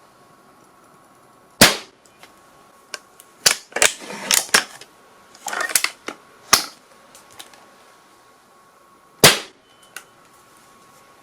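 Gunshot sound effects: a single sharp shot about a second and a half in, then a quick irregular run of shots with a rattling burst between about three and seven seconds, and one more lone shot near the end. The shots are sharp, high cracks with little low boom.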